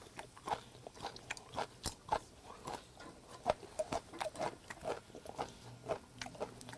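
A person chewing a mouthful of grilled freshwater eel with a chive stalk, heard close up: soft, wet mouth smacks and small clicks at an irregular pace.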